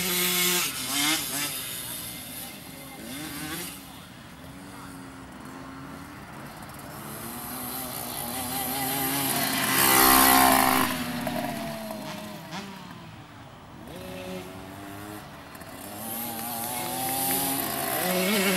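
Small minibike engines revving up and down as they ride round a dirt motocross track. One bike passes close about ten seconds in, the loudest moment, and the engine note rises again near the end.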